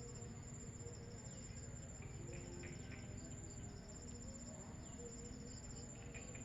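Insects chirping in chorus: a steady high-pitched trill with rapid pulsed chirps, faint.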